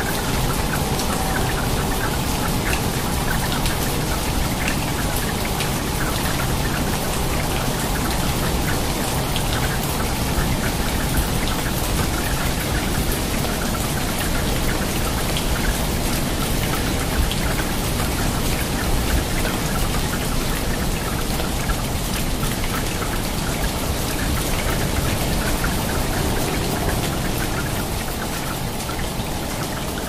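Steady heavy rain, a dense patter of drops splashing onto water.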